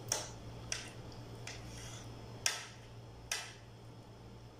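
Metal spoon and fork clinking and scraping against a plate while cutting up a piece of fried chicken, five short clicks spaced unevenly, the first and fourth the loudest.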